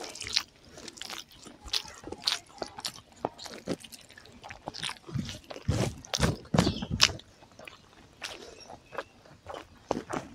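Close-miked eating sounds of a person chewing mouthfuls of rice and curry eaten by hand: a steady run of short, sharp mouth clicks, louder and busier for a second or so past the middle.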